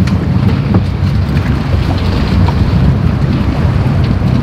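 Jet boat engine running with a steady low rumble, with wind noise on the microphone.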